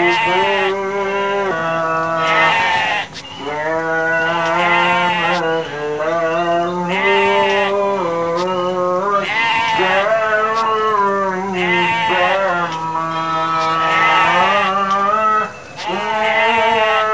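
A flock of sheep bleating, many quavering calls overlapping almost without a break, with two brief lulls, about three seconds in and near the end.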